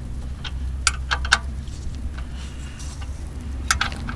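Spanner clicking and tapping against the loosened oil sump drain plug under a Toyota Coaster: a few sharp metallic ticks about a second in and two more near the end, over a low steady hum.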